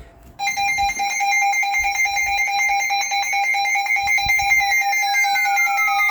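Electronic emergency alert alarm: a loud, steady, rapidly pulsing tone sounds from about half a second in, and about four and a half seconds in a second tone begins gliding down in pitch over it.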